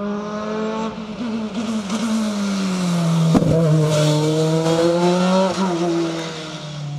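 A rally car's engine at high revs driving past close by, its note falling about three seconds in, then holding and climbing slowly with short drops near the end. A single sharp crack comes at the loudest point, about three and a half seconds in.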